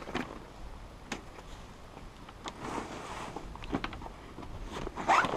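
Handling noise from a folding kayak's front frame section being worked into its hull skin: scattered light knocks and clicks with rustling, louder near the end.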